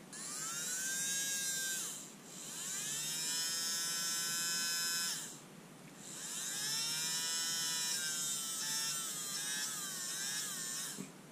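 Small brushed DC motor from a Panasonic EY503 cordless screwdriver, run three times in short bursts. Each time it whines up in pitch as it spins up, holds steady, then stops; in the last run the pitch wavers near the end. It is being run after a flush with electrical contact cleaner because the owner suspects a fault in the motor.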